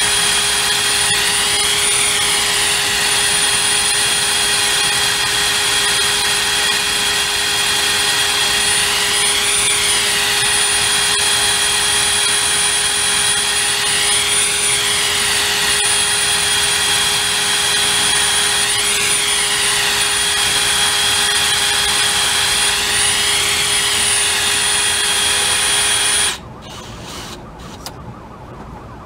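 DeWalt brushless cordless drill running steadily at high speed, spinning a long shaft inside the pintle hitch sleeve, with a steady whine that swells and dips every few seconds. The drill stops abruptly near the end.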